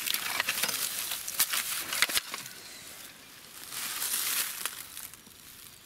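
Footsteps crunching through dry grass and dead leaves, with sharp crackles of dry stems, easing off about three seconds in and picking up again a second later.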